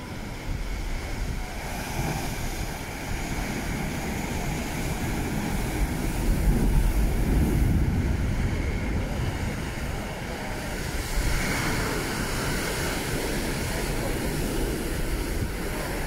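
Atlantic surf breaking on a rocky shore in a continuous wash with a deep rumble, swelling louder about six seconds in and again near twelve seconds as bigger waves crash, with wind buffeting the microphone.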